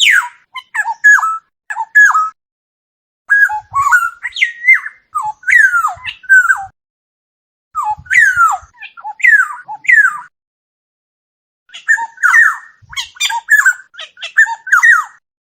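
Oriole calling: four bouts of quick, downward-sliding whistled and squeaky notes, separated by short pauses, with no background noise.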